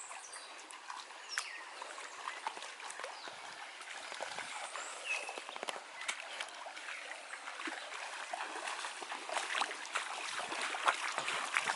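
River water running over rocks, a steady rushing, with scattered small splashes and clicks throughout.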